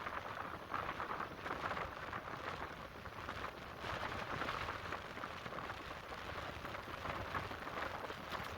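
Atlantic Ocean surf washing onto a sandy beach: a continuous hiss of breaking waves that swells and eases.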